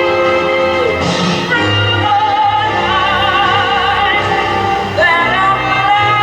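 Music with an operatic voice singing long held notes with a wide vibrato over an accompaniment.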